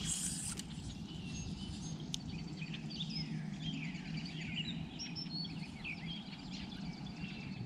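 Birds chirping and singing around the lake, many short rising and falling calls over a steady low hum, with a brief hiss right at the start.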